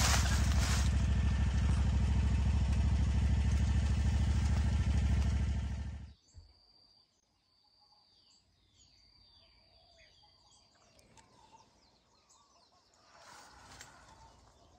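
A loud, steady noise with a low hum cuts off suddenly about six seconds in. It leaves faint outdoor ambience with scattered bird chirps, which grows a little louder near the end.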